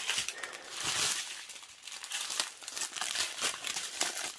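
Clear plastic bags of diamond painting resin drills being handled, crinkling and crackling irregularly, with the small drills rattling inside.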